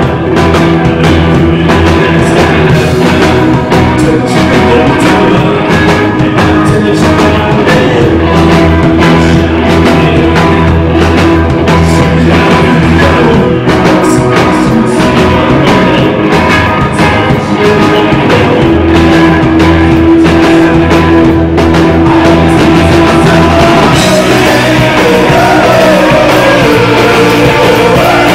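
Rock band playing live, loud: electric guitars, bass and drums with a singer's voice, recorded from the crowd.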